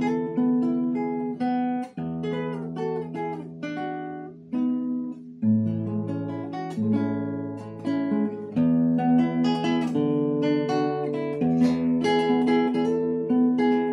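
Background music on acoustic guitar: chords and picked notes changing every second or so, with a short lull about five seconds in.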